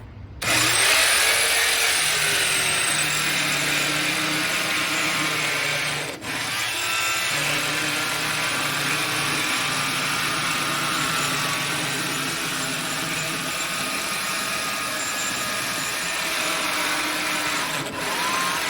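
Handheld circular saw starting up and ripping lengthwise through a copper-treated 2x4, running steadily under load. The sound dips briefly twice, about six seconds in and near the end.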